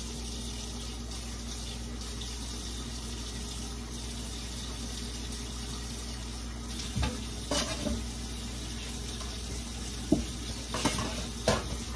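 Kitchen faucet running steadily into a sink as it is rinsed out, with a few sharp knocks and clatters of things being handled in the second half.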